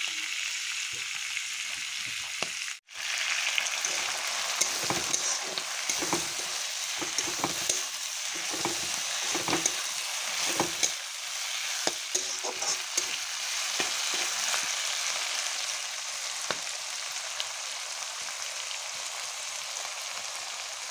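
Pigeon meat with onion and bay leaves sizzling in a pan, stirred and scraped with a spatula in short strokes that come thickest in the middle and thin out near the end. The sound cuts out for a moment about three seconds in.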